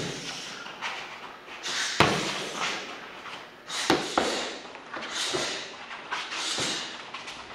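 Gloved punches and kicks hitting Muay Thai pads held by a coach: a series of sharp smacks at irregular intervals, the loudest about two seconds in.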